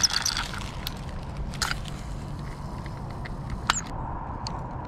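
Handling noise of a spincast rod and reel during a cast, with a few sharp clicks over a steady outdoor hiss.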